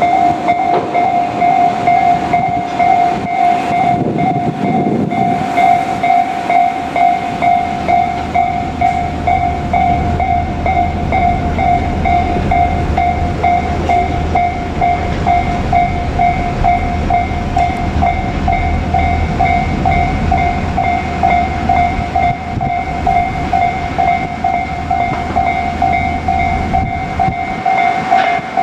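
Japanese railway level-crossing warning bell ringing steadily at about two strokes a second, with a train rumbling past over the crossing for most of it.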